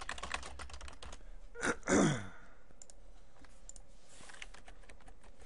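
Quick clicking of computer keys, then about two seconds in a short intake of breath and a sigh that falls in pitch, with a few scattered clicks after.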